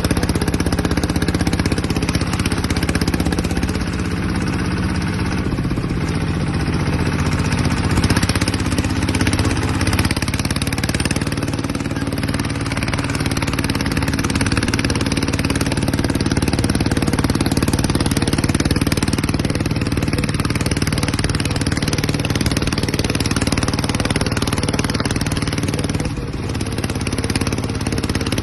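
Yanmar TF150 single-cylinder diesel on a two-wheel walking tractor running steadily under load as it pulls a trailer, its beat easing briefly near the end.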